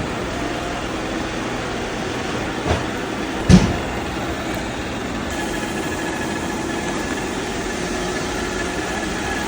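Roomba robot vacuum running with a steady motor hum and faint whine. A light knock comes about two and a half seconds in, and a single loud thump about a second later.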